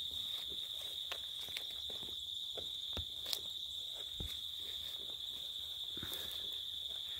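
Crickets chirring in a steady high chorus, with a few faint clicks and knocks scattered through it.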